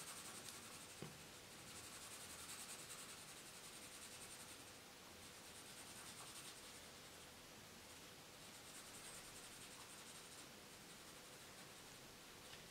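Faint scratching of a pencil shading on paper, coming and going in stretches of strokes, with a light tap about a second in.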